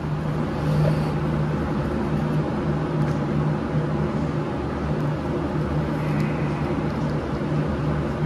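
Steady low machine hum with an even background noise, joined by a few faint light clicks a few seconds in.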